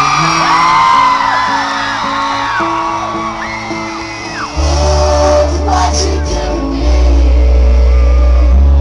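A live rock band playing guitars under a crowd cheering and whooping. About halfway through, a loud bass line and drums come in and the band plays on at full volume.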